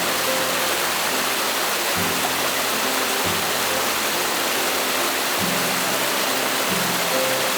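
Steady rush of flowing river water, with soft background music of low held notes that change every second or two.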